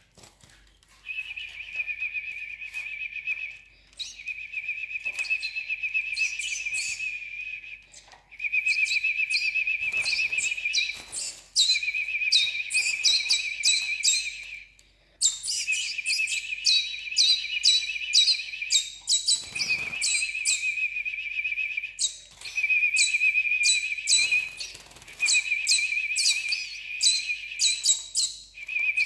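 European goldfinch chicks begging to be fed: rapid, buzzy chattering calls in bouts of two to three seconds, broken by short pauses and repeated over and over. A few faint knocks come in around ten and twenty seconds in.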